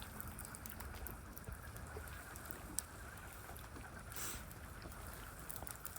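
Faint outdoor ambience: a low steady rumble with a thin even hiss, and a few small clicks, one about three seconds in.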